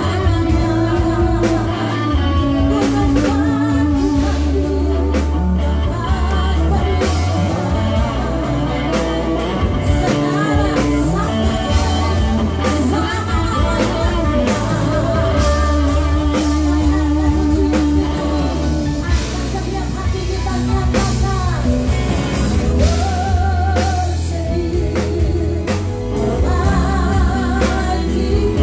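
Live gospel worship band playing: keyboards, electric guitar, bass and drum kit, with singers on microphones carrying the melody.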